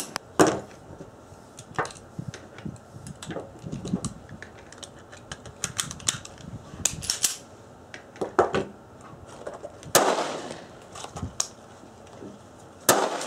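Pistol shots: a few sharp reports, the loudest about half a second in, about ten seconds in and near the end, with fainter clicks and knocks between.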